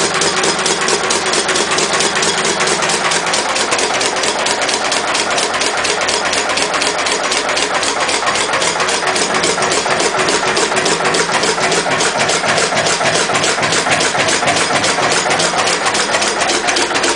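Lister CS stationary diesel engine running steadily on waste vegetable oil, with a rapid, even knocking beat.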